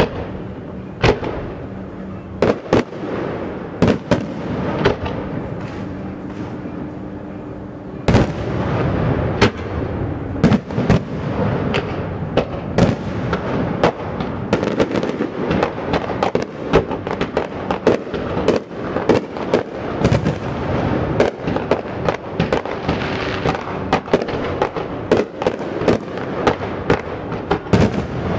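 Fireworks going off, a string of sharp bangs and crackles over a steady background wash. The bangs come a second or so apart at first, then turn rapid and near-continuous from about eight seconds in.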